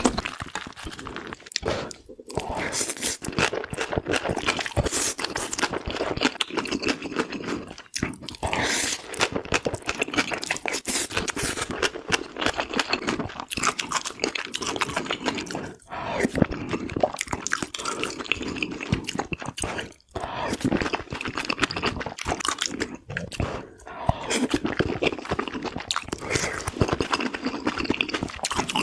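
Close-miked eating sounds: chewing and crunching of food, with dense wet clicks. There are brief breaks every few seconds.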